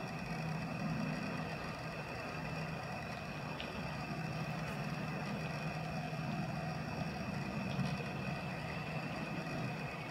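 Steady low hum of an engine running, with a faint steady high tone above it.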